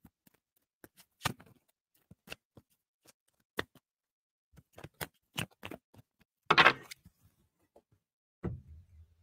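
Playing-card-sized fortune-telling cards being handled on a table: scattered light clicks and taps as cards are picked up and sorted, with one louder rustle about six and a half seconds in.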